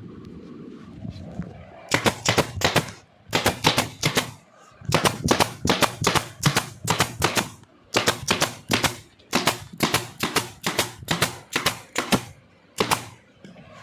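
Rapid sharp cracks in quick bursts of three to six, about five a second, with short pauses between bursts, from fastening fabric to a plywood headboard. A low steady hum runs underneath.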